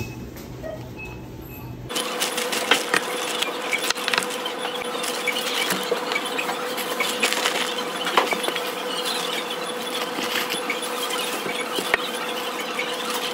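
Groceries in plastic packaging being handled and set down on a shop counter: rustling with many light knocks and clicks over a steady hum. It gets louder about two seconds in.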